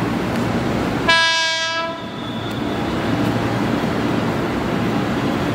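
JR 205-5000 series electric commuter train sounds its horn once, a short blast of about a second, about a second in. The steady noise of the train running on the rails continues throughout.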